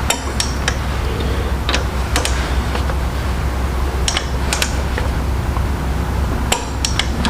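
Sharp metal clicks of a torque wrench and socket working the crankshaft adapter bolts, coming singly and in pairs about half a second apart, over a steady low hum.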